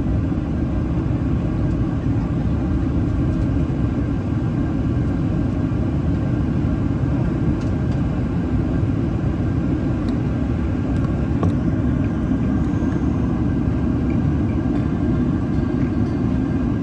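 Steady cabin noise inside a Boeing 737-800 during descent: the CFM56 engines and airflow heard from a window seat as an even, deep rumble.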